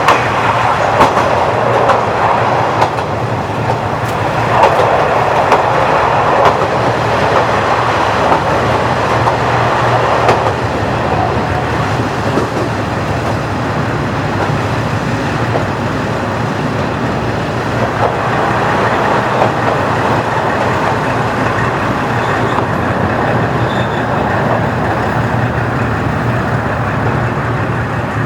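JNR KiHa 40-series diesel railcar running on the line, its original DMF15HSA diesel engine giving a steady low hum under continuous wheel-on-rail noise. The rolling noise is louder for the first ten seconds or so, then eases.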